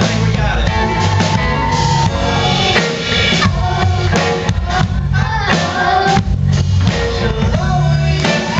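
A live band plays: drum kit, electric bass guitar and keyboard, with singing over it.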